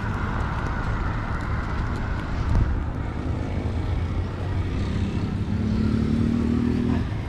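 Traffic on a nearby road: a steady low rumble, a dull knock about two and a half seconds in, and a vehicle engine note that swells near the end and then stops.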